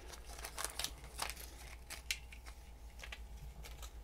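Faint rustling and scattered light clicks of a SATA-to-USB adapter cable being uncoiled and handled on a desk mat.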